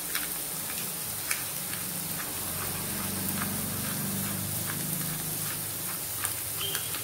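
Scrambled egg and chopped vegetables frying in oil in a nonstick pan: a steady sizzle with scattered small pops and crackles.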